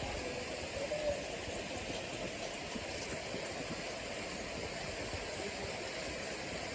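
Steady rushing of water from a small waterfall and stream.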